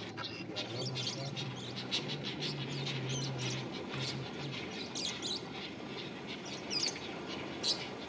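Short, high chirping calls, one after another and sometimes in quick runs, from small animals. A faint low hum stops about halfway through.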